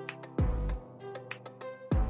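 Instrumental background music with drums: sustained pitched notes over deep kick-drum thumps and cymbal hits.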